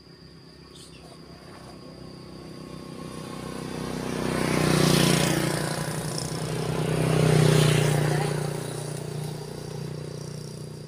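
Motor vehicles passing close by. The sound swells to a loud peak about five seconds in and again about two and a half seconds later, then fades.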